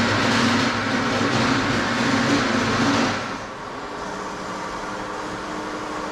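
Loud, steady mechanical running noise with a low hum in it, which cuts down sharply about three seconds in to a quieter steady hum.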